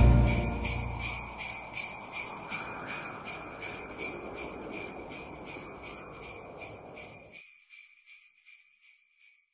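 Sleigh bells shaken in a steady rhythm, about two to three shakes a second, fading out gradually as the tail of a Christmas music track until they die away near the end.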